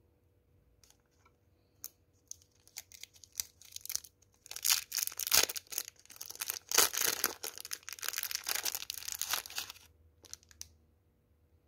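Clear plastic candy wrapper crinkling and tearing as it is pulled open by hand: a few scattered crackles at first, then about five seconds of dense crinkling that stops shortly before the end.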